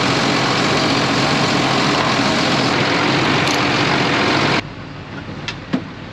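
Heavy engine running steadily close by, with a steady low hum under a loud rushing noise; it cuts off abruptly about four and a half seconds in, leaving a quieter background with a few sharp clicks.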